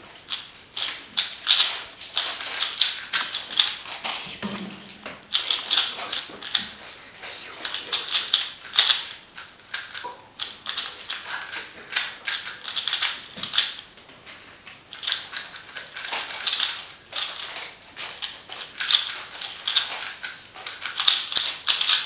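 A plastic 3x3 speedcube being turned fast by hand during a timed solve: a dense, continuous clicking rattle of layer turns, broken by a few brief pauses.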